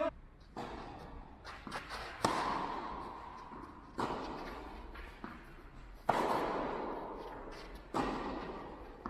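Tennis balls struck by racquets in a rally, four hits about two seconds apart, each echoing on in a large hall.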